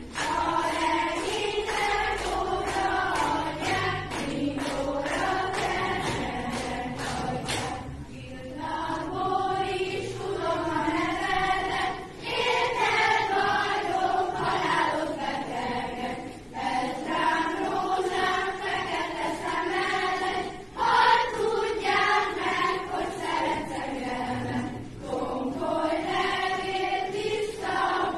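A group of voices, mostly female, singing a song together, with a sharp regular beat alongside the singing that stops about eight seconds in.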